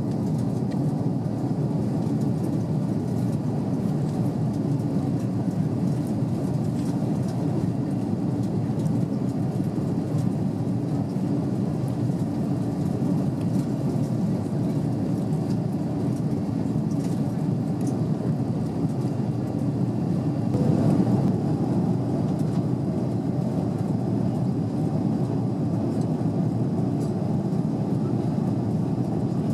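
Airbus A330 cabin noise in the climb: the engines and rushing air make a low, even drone inside the cabin, swelling slightly a little over two-thirds through.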